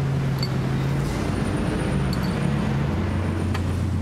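A running machine's steady low drone with a hum that shifts a little in pitch. A few faint light clicks come as metal bearing shells are set down on a bench vise.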